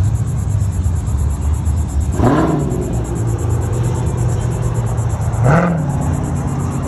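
Dodge Challenger's engine with a deep, steady rumble as the car pulls away slowly, revved briefly twice: about two seconds in and again about three seconds later, each a quick rise and fall in pitch.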